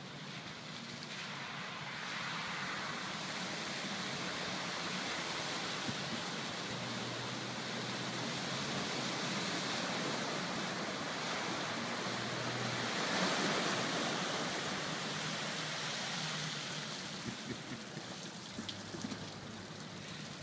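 Nissan Xterra SUV ploughing through deep standing water, its tyres pushing a bow wave: a steady rushing and sloshing of water that builds, is loudest about two-thirds of the way through, then fades as the SUV comes out of the water, over a faint low engine hum.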